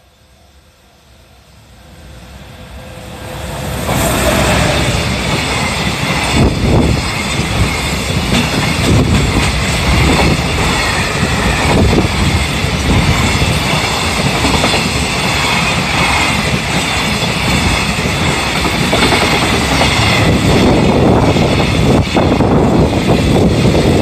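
A level-crossing alarm dings faintly. Then an EF210 electric locomotive hauling a container freight train approaches and goes past, loud from about four seconds in. After it comes a long string of container flatcars rolling by, their wheels clattering over the rail joints in a steady rhythm.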